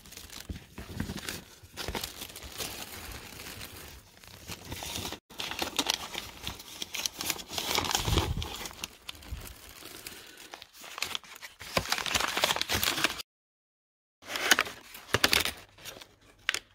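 Paper crinkling and rustling as it is handled and pulled about inside a leather bag, in irregular spells. The sound cuts out completely for about a second near the end.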